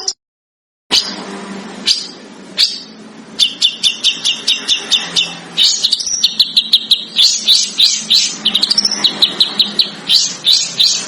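A small songbird calling: a few separate sharp notes, then from about three seconds in a fast, even run of high, sharp notes at about six a second, some sweeping upward, over a steady background hiss. It starts about a second in, after a brief silence.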